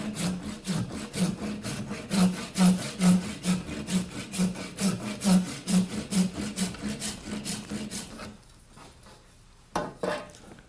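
Hand saw cutting back and forth in a wooden axe handle, deepening the slot for the wedge to about two-thirds the depth of the axe head, in quick, even strokes, about two or three a second. The sawing stops about eight seconds in, followed by a couple of light knocks.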